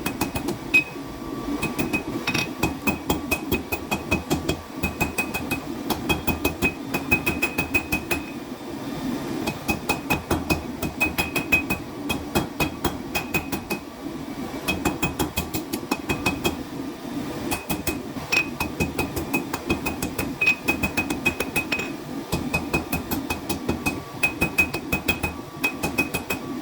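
Hand hammer striking steel on an anvil in runs of quick blows with short pauses, each blow leaving a bright metallic ring.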